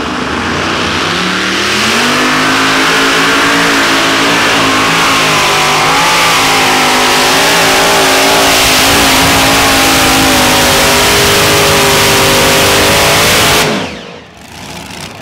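Multi-engine unlimited-class pulling tractor at full throttle hauling the weight sled. The engine note climbs over the first couple of seconds, then holds loud with a wavering pitch. About 14 seconds in the engines are cut abruptly and the tractor stops.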